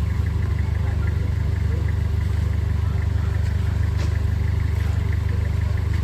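An engine idling steadily, with a constant low hum and a fast, even pulsing.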